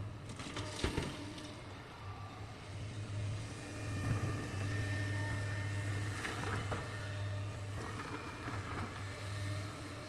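Excavator's diesel engine running with a steady low drone, broken by several sharp knocks and clatters: one about a second in, one around four seconds, two around six seconds and a few more near the end.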